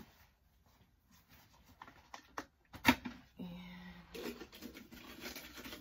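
Plastic top of a CaviWipes disinfectant-wipe canister being worked open, with one sharp snap about three seconds in. A brief hum of voice follows, then plastic rubbing and rustling as a wipe is pulled out.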